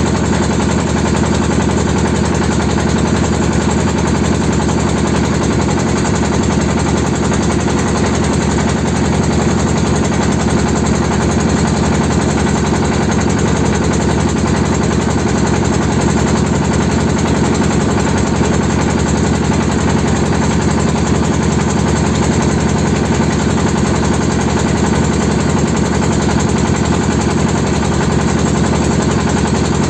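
Engine of a small wooden river motorboat (pompong) running steadily at constant speed, with a rapid, even exhaust beat.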